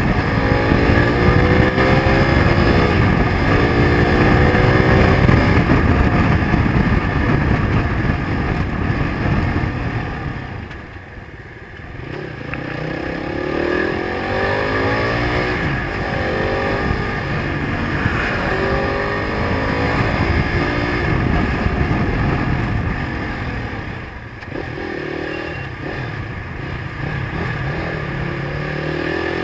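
Zongshen RX3 (Corven Touring 250) motorcycle's single-cylinder engine heard up close, revving up and easing off again and again as it picks its way through slow traffic, its pitch rising in repeated sweeps through the gears. The engine sound drops briefly about a third of the way in, and again shorter later on, as the throttle comes off.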